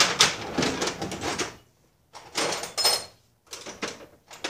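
Metal tools and socket adapters clattering and scraping as they are handled and gathered, in four bursts, with a brief metallic ring near the middle.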